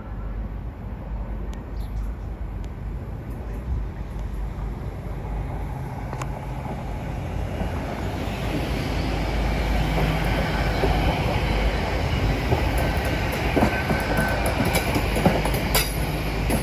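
A train running into the station, its rumble growing louder from about halfway through, with sharp clicks of wheels over rail joints and a brief faint wheel squeal near the end.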